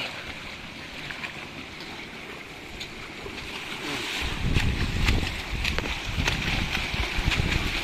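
Steady rushing of stream water with small splashes and clicks. From about four seconds in, a louder low rumble joins.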